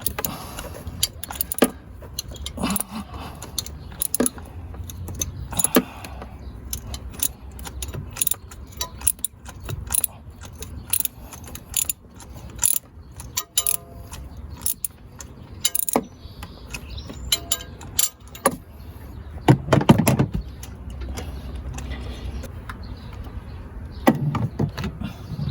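Ratchet and socket clicking and metal tools clinking as the number 7 spark plug of a Ford F-150's 5.4-litre three-valve V8 is worked loose, over a low steady hum.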